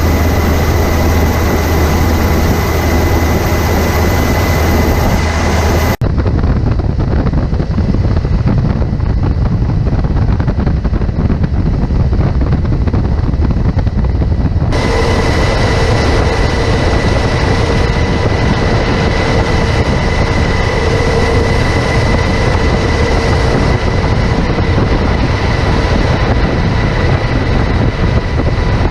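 Steady loud rumbling roar of machinery and wind noise with a faint steady whine. The sound changes abruptly about six seconds in and again near fifteen seconds.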